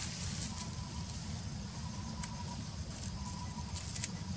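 Outdoor ambience with a steady low rumble, and a few sharp crackles of dry leaves and straw, one about two seconds in and a pair near the end.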